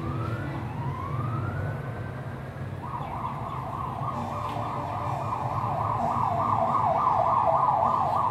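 Emergency-vehicle siren: a few slow rising sweeps, then about three seconds in it switches to a fast warble of roughly three sweeps a second that grows louder.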